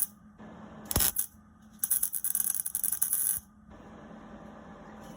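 Metal being worked on a freshly welded piece: a sharp metallic knock about a second in, then about a second and a half of dense, high-pitched scraping crackle that stops abruptly, over a steady low hum.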